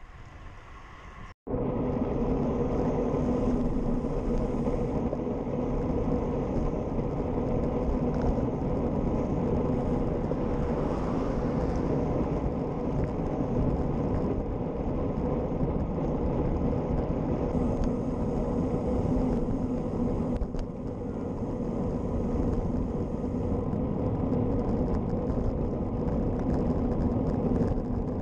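Road bike riding at speed on tarmac: a steady rush of wind and tyre noise on the handlebar camera's microphone, with a constant low hum under it. The sound drops out for an instant about a second and a half in, then runs on unchanged.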